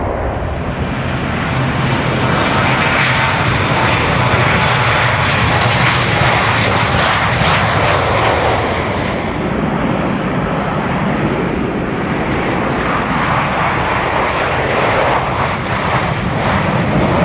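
Jet airliner engines at takeoff power, heard as a steady, loud rush as successive aircraft take off: a Boeing 717 climbing out, then a four-engined Avro RJ lifting off. A faint high whine slides slowly downward over the first half.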